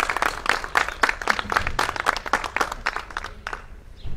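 Applause from a small audience, with the separate claps audible, dying away about three and a half seconds in.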